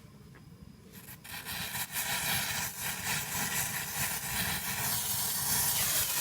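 Potassium nitrate and sugar smoke mixture being stirred and scraped in a pot as it cooks, with a sizzling hiss that builds up from about a second in.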